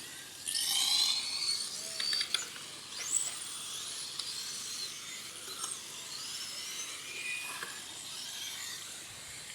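Radio-controlled race cars' motors whining at high pitch, the whine gliding up and down as the cars speed up and slow. It is loudest from about half a second to two seconds in, with a few sharp clicks around two seconds.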